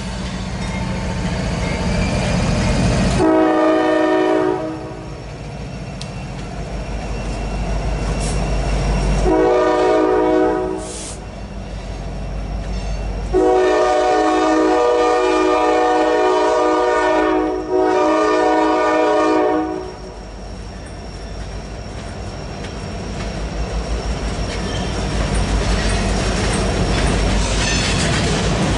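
Multi-note air horn of a CSX GE ES44DC diesel locomotive at the head of a freight train, sounding three blasts: two of a second or two each, then a long one broken briefly near its end. Under it runs the low rumble of the diesel locomotives and loaded coal hopper cars rolling past, with wheels clacking over the rail joints.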